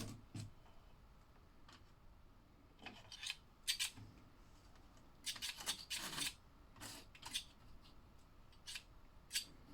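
Small plastic toy parts being handled: light clicks and short raspy scrapes of a slot car set's plastic track and cars, in scattered bursts, busiest about five to six seconds in.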